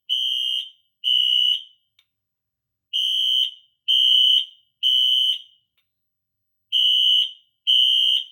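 Siemens NS-24MCW ceiling-mount fire alarm horn strobe (a rebranded Wheelock NS), its horn set to high volume, sounding loud high-pitched beeps in repeating groups of three with a longer pause between groups: the temporal-3 evacuation pattern.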